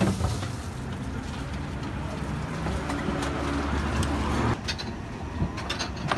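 Street ambience with a motor vehicle engine running steadily; the engine sound drops away suddenly about four and a half seconds in, followed by a few light clicks.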